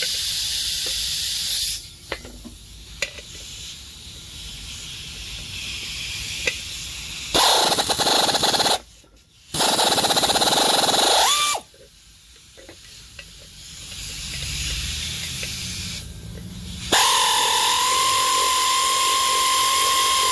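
Pneumatic air ratchet on a pulley nut: a steady air hiss at the start, then the tool runs in two short bursts around the middle, its pitch gliding as it stops, and a steady run with a high whine over air hiss near the end.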